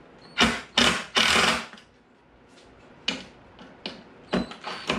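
Cordless drill driving wood screws through the chair arm into pre-drilled holes, in three short bursts in the first two seconds, the last one the longest. A few light clicks and knocks follow.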